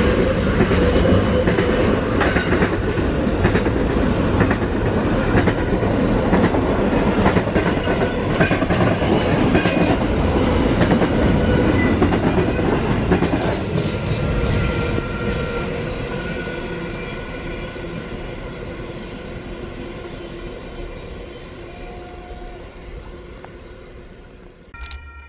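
Container freight train passing on the line, its wagons' wheels clattering over the rail joints in a steady rumble. About halfway through, the sound starts to fade steadily as the train draws away.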